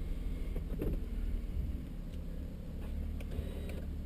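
Mercedes C32 AMG's supercharged V6 idling as a steady low rumble, heard from inside the cabin, with a few faint clicks near the end.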